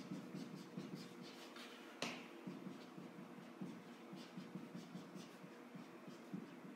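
Marker pen writing on a whiteboard: a run of short, faint scratchy strokes, with one sharp tap about two seconds in.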